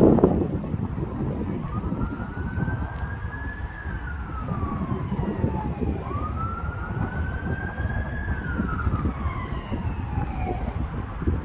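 Emergency vehicle siren in a slow wail, rising and falling twice, over steady wind noise on the microphone.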